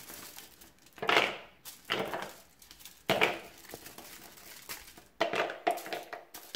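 A slab of dark chocolate broken into squares on crinkling aluminium foil, the pieces dropped into a plastic bowl: a handful of short crunching, crinkling and clattering sounds, several close together near the end.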